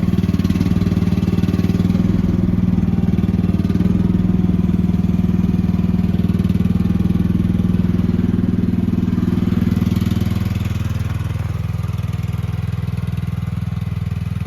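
Small petrol engine of an AGT QS12R mini excavator running steadily just after a choked start, dropping slightly in pitch and loudness about ten seconds in.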